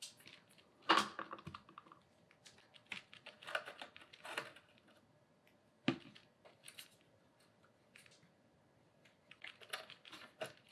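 Hand screwdriver working screws out of a LiDAR sensor's metal case: irregular small metal clicks and ticks, with sharper clicks about a second in and about six seconds in.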